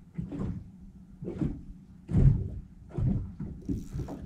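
Irregular thumps and knocks in an aluminum jon boat, about six in four seconds, over a faint steady hum.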